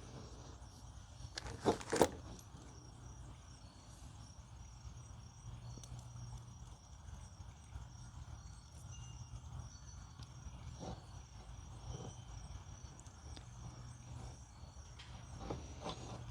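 Two sharp knocks close together about two seconds in, then a few fainter clicks, over a steady low hum and faint, evenly repeating insect chirping.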